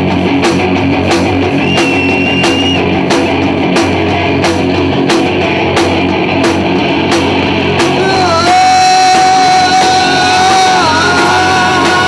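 Live rock band with two electric guitars, bass guitar and drum kit playing, amplified, over a steady drum beat. About eight seconds in, a long held note with bends comes in over the band.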